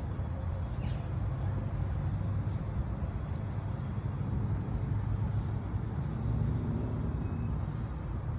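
Outdoor ambience: a steady low rumble with a few faint, short high-pitched clicks and chirps over it.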